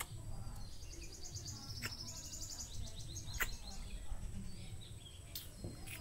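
Faint, rapid, high-pitched bird twittering for about two and a half seconds, starting about half a second in, over a low outdoor rumble, with a few sharp clicks.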